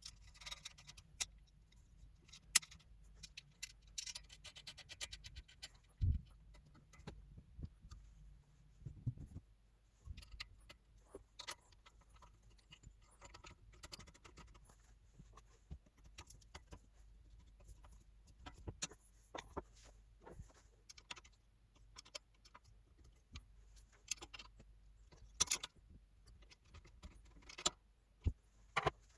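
Irregular metallic clicks, clinks and light knocks of small metal hardware and tools being handled, with a few louder knocks scattered through.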